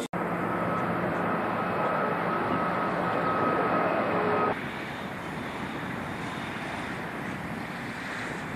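Jet airliner climbing after takeoff, its engines a steady loud rush with a faint high whine. About four and a half seconds in this cuts off abruptly to a quieter steady rush.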